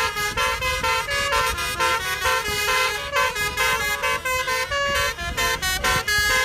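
Telolet bus horn, a multi-tone musical air horn, tooting a rapid melody of short notes that steps up and down in pitch.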